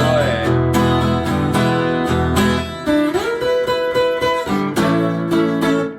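Instrumental break in a blues song: strummed acoustic guitar with a bass line, and a lead note that slides up about three seconds in and is held.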